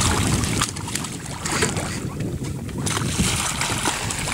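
A hooked blue shark thrashing at the surface against a boat's hull, throwing up splashes several times, over a steady rumble of wind on the microphone.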